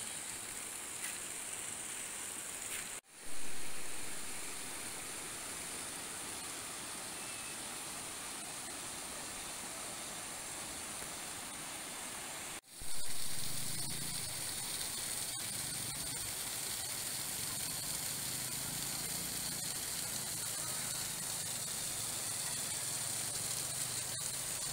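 Steady rushing of a shallow river running over rocks, broken twice by abrupt cuts, each followed by a brief louder swell.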